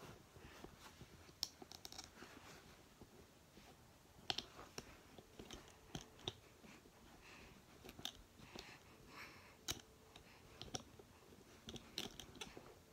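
Faint, irregular clicks and small knocks of a handheld phone being handled, over a near-silent room.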